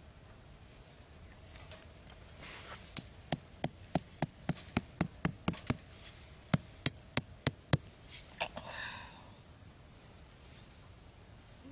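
A run of sharp knocks, about three a second: eleven strikes, a short pause, then five more, followed by a brief scraping rustle.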